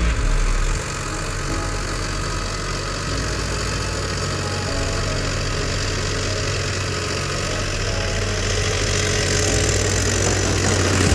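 Mahindra SP Plus tractor's diesel engine running steadily, getting a little louder near the end.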